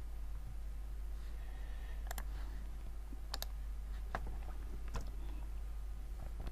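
A few scattered clicks from a computer mouse and keyboard, some in quick pairs, over a low steady hum.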